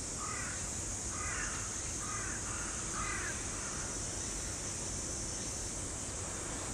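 A crow cawing several times in quick succession during the first three seconds, over a steady background hiss.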